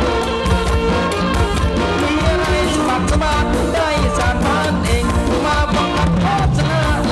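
Music accompanying a likay / kantruem folk-theatre performance, played loud and continuous. A band keeps a steady beat under a melody line that bends up and down in pitch.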